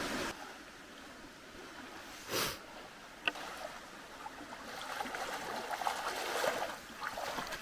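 Creek water running steadily over a shallow crossing. A short, louder rush of noise comes about two and a half seconds in, and a sharp click about a second later.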